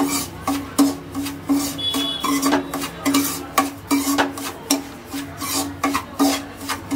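A metal spoon scraping and stirring dry semolina around a pan as it roasts, a rasping scrape about three strokes a second.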